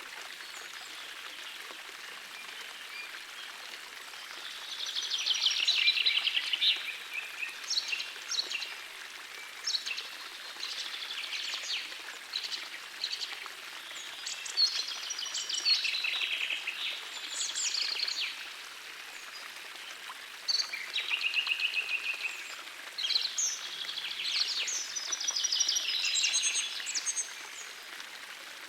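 Forest stream flowing steadily, with songbirds singing over it in repeated phrases of quick trilled and chirping notes.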